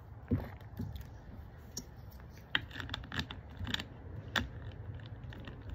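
A run of irregular sharp clicks and rattles, sparse at first and thicker from about two and a half seconds in, which is taken for someone trying to open the door.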